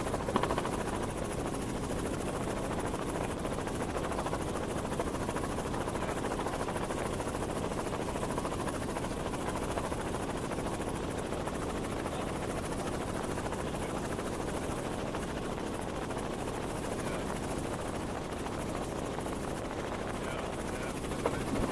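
Helicopter in steady cruising flight heard from on board: a constant, unchanging drone of rotor and engine noise.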